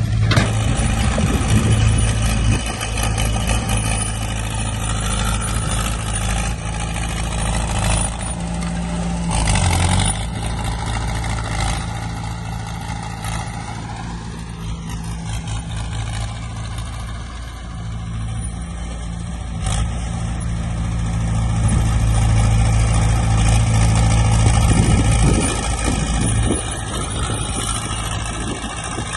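Diesel engine of heavy earthmoving equipment running steadily under load, revving up about halfway through and easing back.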